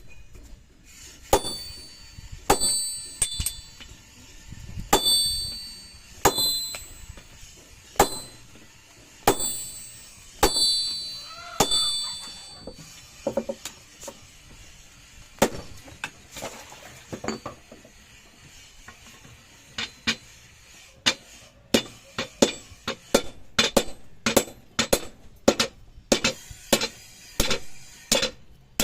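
A hand hammer striking steel on an anvil. The blows in the first half come about one every 1.3 seconds, each followed by a high ringing tone. In the second half the blows come faster and more irregularly, with little ringing.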